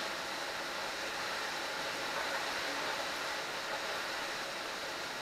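A steady, even hiss with nothing else standing out.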